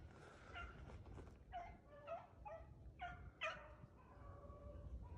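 Beagle hounds baying faintly while running a rabbit: a string of short, pitch-bending yelps, then a longer drawn-out bawl near the end.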